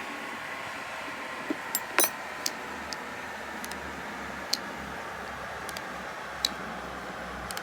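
A steady mechanical whir with a faint hum, broken by scattered sharp clicks and small metallic taps, the loudest a quick double click about two seconds in.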